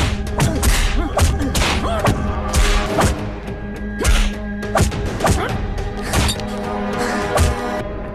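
Film soundtrack of a beating: tense music over a steady low drone, cut through by repeated, irregular whacks and thuds of blows landing on a body. The blows stop near the end and the music carries on.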